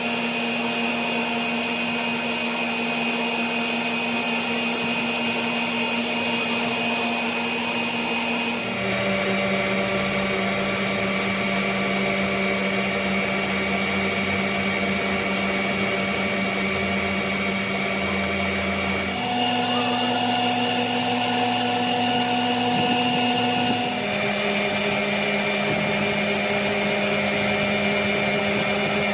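Steady hum of an electric machine motor running in a metalworking shop. The pitch and tone change abruptly about 9 seconds in, again about 19 seconds in, and about 24 seconds in.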